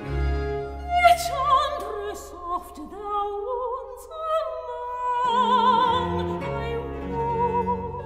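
Baroque soprano aria: a soprano singing sustained notes with wide vibrato, entering about a second in, over a string orchestra and bass continuo.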